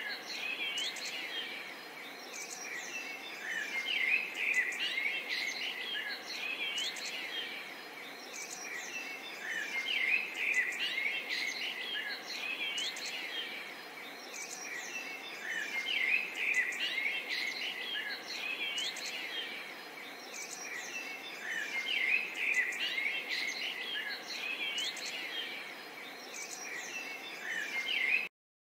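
A dense chorus of many small birds chirping and twittering over a faint steady background hiss. The sound cuts off suddenly near the end.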